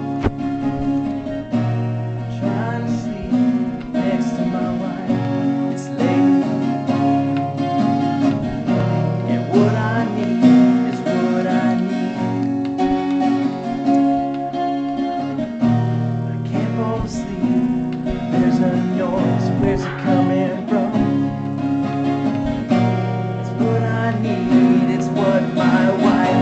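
Acoustic guitar being strummed in a steady run of ringing chords.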